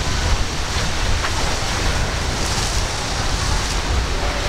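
Wind buffeting the microphone over a steady wash of surf and waves.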